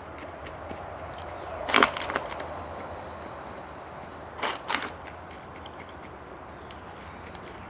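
Small clicks and scrapes of gritty potting soil being worked into a pot around a haworthia's roots, with two louder knocks about two seconds and four and a half seconds in.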